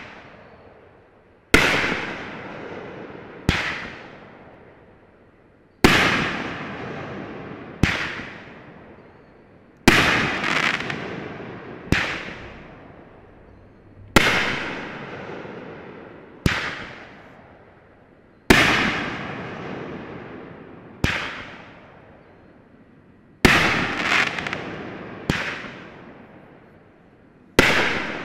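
500-gram consumer firework cake firing its aerial shots one after another, about one every two seconds. Each is a sharp bang followed by a long fading tail.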